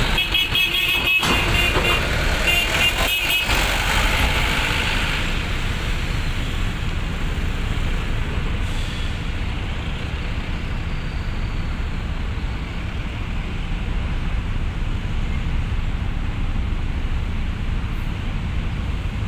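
Heavy diesel vehicles coming off a ferry ramp: a box truck's engine passes close in the first few seconds, with two short high-pitched squeals or toots, then a steady low engine rumble as a coach idles and creeps inside the ship's vehicle deck.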